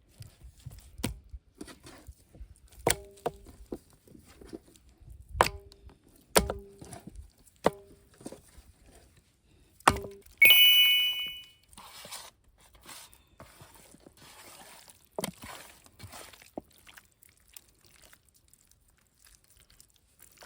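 Chicken leg pieces being coated with masala by hand in a bowl: irregular knocks and clinks against the bowl, some ringing briefly, with a louder ringing clang about ten seconds in, followed by softer squishing and handling sounds.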